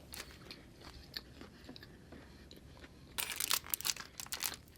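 Close-miked eating: faint chewing clicks, then about three seconds in a loud spell of crunching as crisp food is bitten and chewed.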